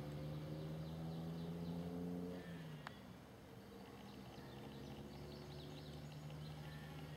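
A distant motor's steady low hum fades out about two and a half seconds in, while small birds chirp faintly in the background. There is a single sharp click near the three-second mark.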